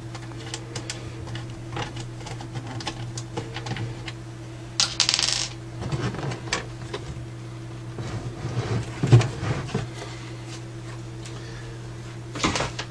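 Small metallic clicks and clinks of a screwdriver undoing the screws on a Radiotehnika U-101 amplifier's case, then scrapes, knocks and clatter as the metal cover is taken off.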